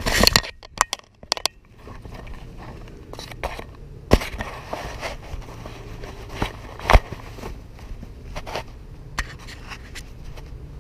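Loud rustling and scraping of the camera's microphone being handled and brushed against leaves, with a few sharp clicks, then scattered soft thuds and scuffs of footsteps walking across grass and dirt.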